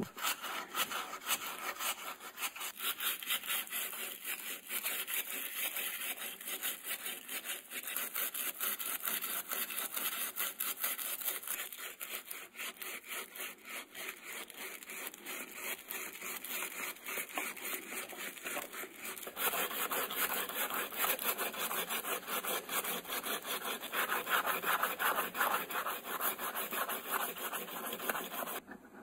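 Sandpaper rubbing over a plastic ratchet-wrench handle in rapid back-and-forth strokes, a dry scratchy sound that grows louder about two-thirds of the way through.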